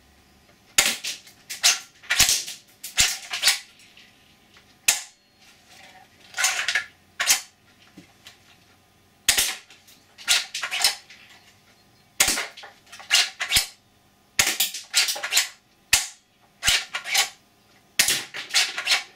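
3D-printed FGC9 spring-powered airsoft replica (FGC6s springer kit) being cocked and fired over and over: a string of sharp plastic clacks and snaps, many in close pairs, from the cocking handle and the spring piston releasing. The sear is not holding properly and the gun trips too easily, which the builder puts down to the sear or a badly seated spring.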